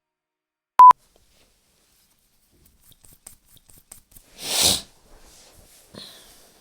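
A short, loud electronic beep at a single pitch about a second in, then a few faint ticks and a brief breathy rush of noise about four and a half seconds in.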